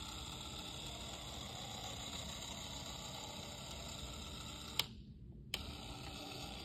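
Small DC gearmotor driving a conveyor belt, running steadily with a faint whine. About five seconds in, a click cuts the motor sound out, and a second click under a second later brings it back.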